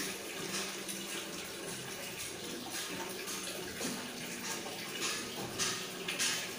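Plastic ketchup squeeze bottle being squeezed hard, squirting and sputtering ketchup and air into a pot in uneven short spurts.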